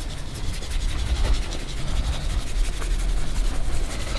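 Wind buffeting the microphone in a steady, uneven rumble, over the gritty rustle of dry seasoning being shaken from a shaker bottle onto raw meat.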